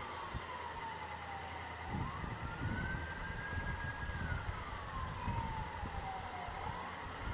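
Ambulance siren in a slow wail, its pitch sliding down and back up about every four to five seconds. A low rumble of traffic and wind comes in about two seconds in.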